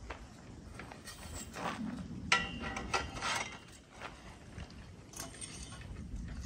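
Light metallic clicks and scrapes of metal trampoline frame tubes being handled and slotted together, a few separate knocks spread through.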